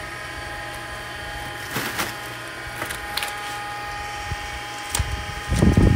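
Live tilapia being handled in a plastic crate: a few sharp knocks and a heavy low thump near the end, over a steady electrical hum.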